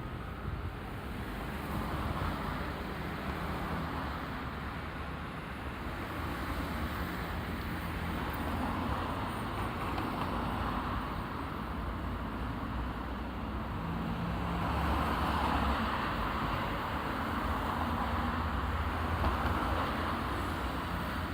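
Traffic at a road intersection: the steady rumble of engines and tyres, with cars passing and swelling louder about two seconds in, around the middle, and again in the last few seconds.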